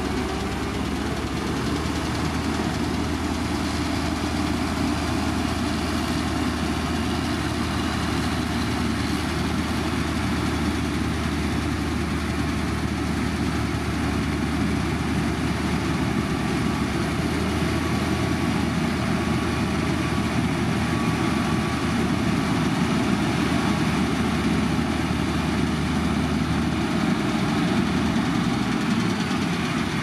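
Heavy diesel construction machinery running steadily, with a constant low drone that drops out near the end.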